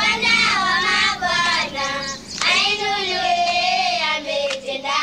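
A high voice singing long held notes that slide up and down in pitch, breaking off briefly about two seconds in.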